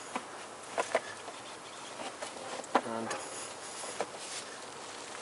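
Pliers clicking on a plastic engine oil filler cap as it is gripped and twisted loose, a few sharp clicks over a steady hiss.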